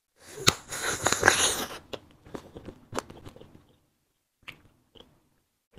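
Close-up biting into a fruit-filled wax candy: a dense crunch lasting about a second and a half, followed by a few lighter chewing clicks that die away about halfway through.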